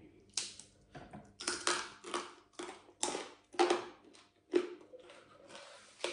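Crispy deep-fried pork belly crunching as it is broken by hand and chewed. Irregular loud crackly crunches come a couple a second and grow fainter near the end.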